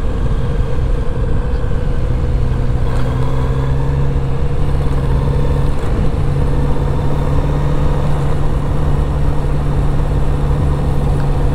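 Kawasaki Z900RS inline-four engine with its 4-into-1 exhaust, running steadily at low road speed, with a brief break in its note about halfway through. Wind and road rumble sit underneath.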